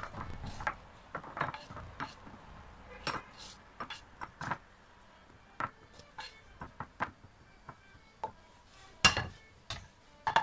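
Spatula scraping and knocking against a pan as fried rice is scooped out into a bowl: a string of irregular clinks and scrapes, with a louder knock about nine seconds in.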